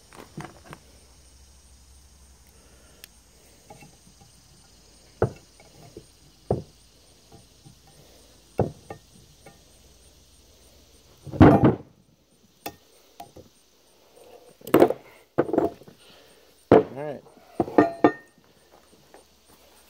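Snap ring pliers and a steel snap ring clicking against a new ball joint in a Dana 44 steering knuckle as the ring is worked into its groove. A few faint clicks come first, then several louder, ringing metal knocks and clanks in the second half as the heavy knuckle is handled on the wooden bench.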